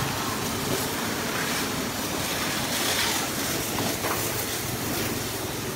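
Pressure washer jet spraying a motor scooter and the wet concrete around it: a steady hissing spray.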